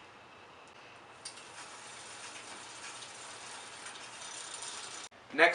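Mountain bike rear freewheel pawls clicking in a fast, even run as the drivetrain turns and the chain runs through a cleaning rag. The clicking starts about a second in and stops abruptly near the end.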